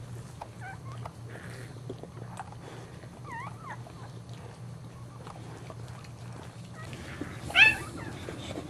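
Newborn Boxer puppy squeaking: a few short, faint, high cries early on and one louder squeal near the end, while the mother licks it with small wet clicks. A low steady hum runs underneath.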